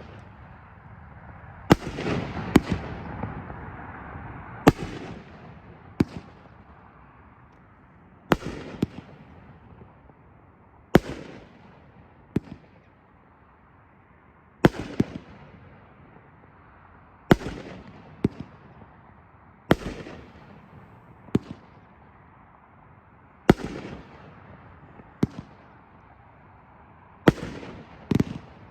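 A 500-gram fireworks cake firing its 2-inch aerial shells one after another, a shot every two and a half to three seconds. Each shot is a sharp bang, often followed about a second and a half later by a second bang as the shell breaks, with a fading hiss after it.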